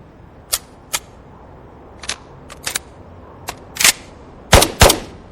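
Gunshot sound effects in a dancehall DJ mix: about eight or nine sharp single shots, spaced unevenly, over a faint background, with the music dropped out.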